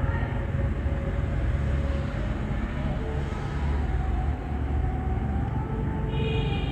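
Steady low rumble of background noise, with faint steady tones above it and a brief higher tone about six seconds in.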